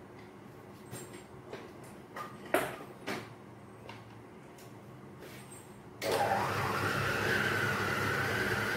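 Clicks and knocks as the motor head and jar of a small electric food chopper are handled and fitted together. About six seconds in, its motor starts and runs steadily with a slightly wavering whine.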